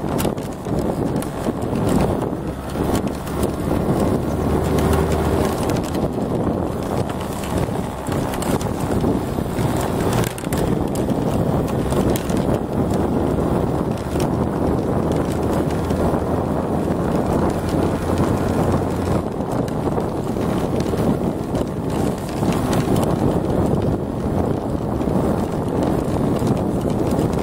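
Yamaha Mate moped riding along at steady speed, its small engine running under wind buffeting the microphone, with rattling and jolting from the rough, cracked road surface.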